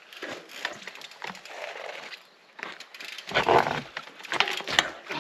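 Mountain bike being worked over steep rocky steps: irregular knocks and scrapes of tyres and frame on rock, loudest a little after halfway, with a few sharp knocks near the end.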